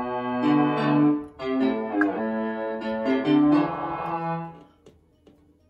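Software synthesizer preset from Arturia Analog Lab, played from a Keylab Essential 61 controller and heard through small computer speakers: a slow run of sustained chords that changes a few times and stops about four and a half seconds in, followed by a few faint clicks.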